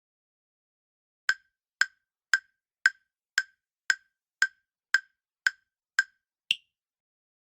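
Countdown-timer tick sound effect: eleven sharp ticks, about two a second, the last one higher in pitch.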